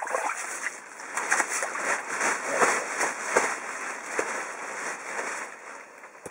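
Irregular crackling and scraping as a long pole is worked down into the ice hole, grinding through ice and slush.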